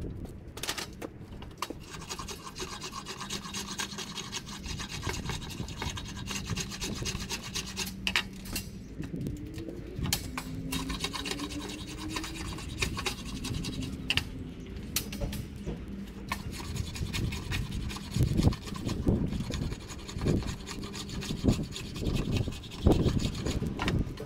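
A hand blade scraping and shaving along a clamped wooden walking-stick blank in long rasping strokes, with a few sharp knocks near the end.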